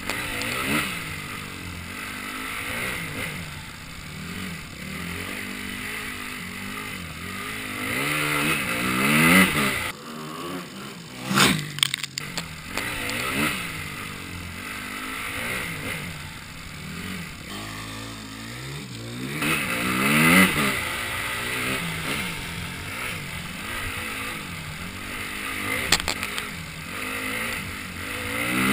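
Dirt bike engine revving up and easing off over and over, its pitch rising and falling with the throttle as the bike rides a dirt track. About ten seconds in the engine drops back briefly and a few sharp knocks and clatter sound.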